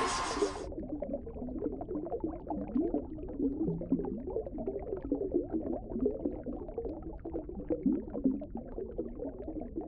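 Muffled underwater bubbling and gurgling sound effect, many small irregular gurgles. A louder sound, most likely music, cuts off abruptly within the first second.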